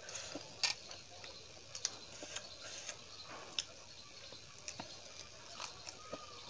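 Close-miked eating of rumali roti dipped in curry: chewing with irregular wet mouth clicks and lip smacks, about one or two a second.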